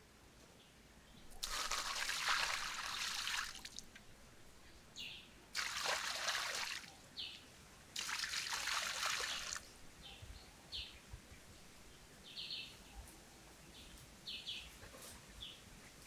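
Water poured from a clay pot splashing into a shallow pond, in three pours of one to two seconds each. Short bird chirps come and go between the pours.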